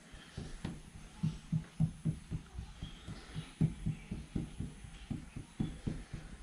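Fingertip dabbing blobs of rubbing compound onto a car's sheet-metal bonnet, a run of faint, dull taps at about three a second.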